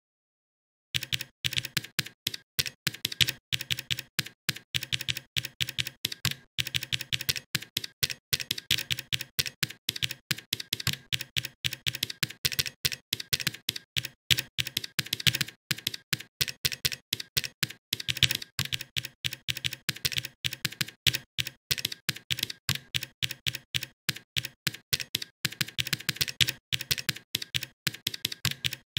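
Typing on a computer keyboard: a fast, continuous run of key clicks. It starts after a brief silence of about a second.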